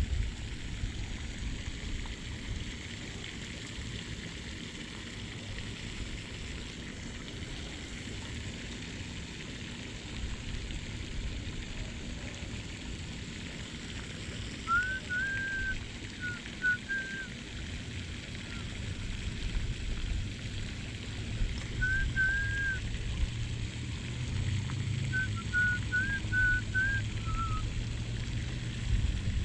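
Steady outdoor hiss with a low rumble, broken by three short runs of high whistled chirps in the second half.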